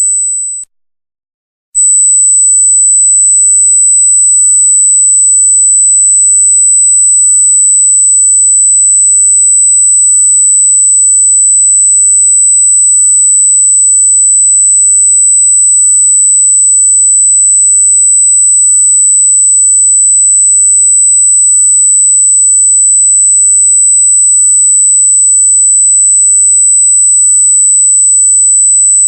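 A single very high-pitched electronic tone, loud and held steady. It cuts out for about a second just after the start, then comes back unchanged.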